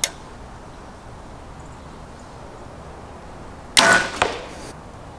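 A faint click at the start, then about four seconds in a compound bow is shot: a loud, sharp crack that rings off over about a second, with a second smaller knock a fraction of a second after it as the arrow strikes the foam 3D target.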